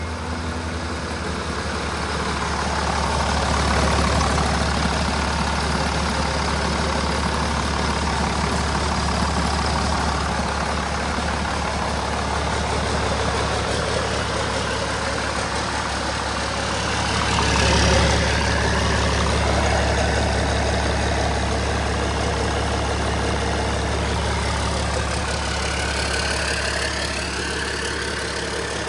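A 2001 International DT466 7.6-litre turbo-diesel engine idling steadily on a stand, running with no exhaust pipe on the turbo outlet. It swells briefly in level about two-thirds of the way through.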